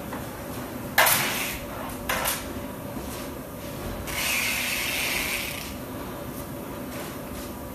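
Aluminium rail of a semi-automatic two-tier bike rack being pulled out and lowered: a sharp metallic clunk about a second in and a smaller double knock a second later, then a steady rasping rattle lasting a second and a half.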